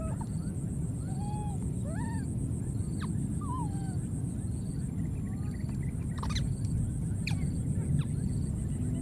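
Baby monkeys giving short, high, arching coos and squeals, one after another, with a few sharper falling shrieks in the second half, over a steady low rumble.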